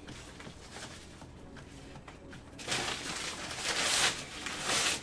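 Packaging rustling as the memorabilia is handled, starting about halfway through and coming in three loud surges.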